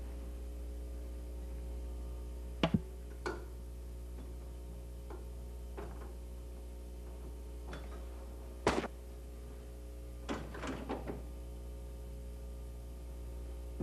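Scattered metallic clunks and knocks from hands and parts on the ball lift of an AMF pinspotter as the drive belts come off the lower ball lift shaft. The loudest knock falls past the middle and a quick run of clicks comes soon after, over a steady low hum.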